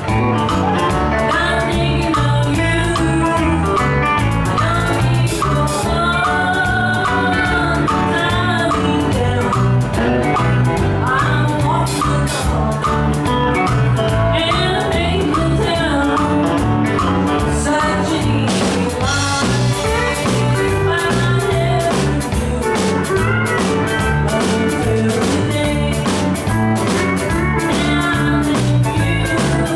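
Live country band playing loudly with a steady drum beat and guitars, and a woman singing lead.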